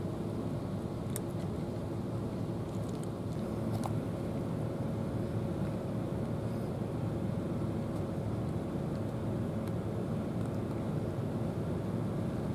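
Steady low rumble of a distant engine, with a faint hum over it and a few faint clicks.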